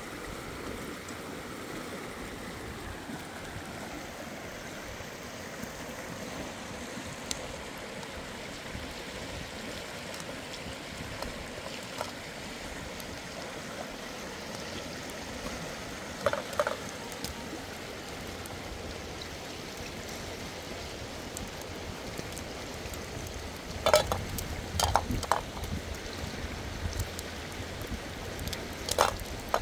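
Steady rush of a stream's running water, with a few short, sharp knocks about sixteen seconds in and a cluster of them near the end.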